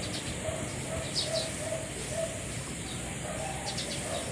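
Sleeping Pomeranian snoring: a steady run of short, squeaky, whistling nasal notes, about two a second.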